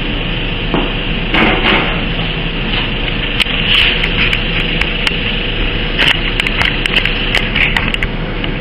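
Handling noise from a camera being carried and repositioned: irregular clicks, knocks and rubbing, thickest in the middle of the stretch, over a steady hiss and low hum of workshop background.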